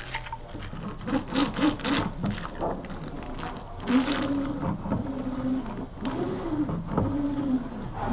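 Small hand roller being run back and forth over wet resin and glass mat along the radius, making irregular clicks and rubbing, scraping strokes as it consolidates the laminate and drives out air. A wavering low tone sounds from about four to seven and a half seconds in.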